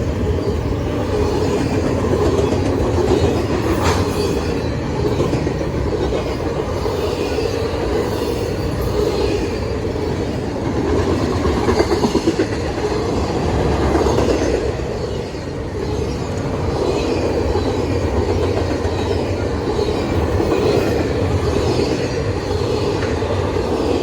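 Norfolk Southern intermodal freight train's cars rolling past, a steady rumble of steel wheels on rail with clatter over the rail joints.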